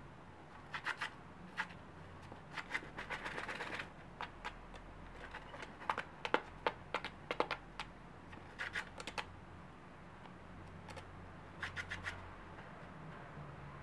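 Japanese quail dust bathing in a plastic tub of fine sand. It comes in several short bursts of quick scratching and rustling as the bird wriggles and flicks sand through its feathers and against the tub, with pauses of a second or two between them.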